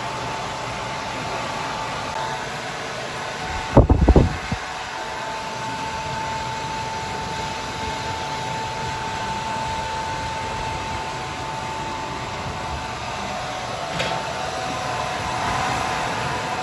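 Hand-held hair dryer blowing steadily while wet hair is dried, with a steady motor whine on one pitch. A brief loud low rumble comes about four seconds in.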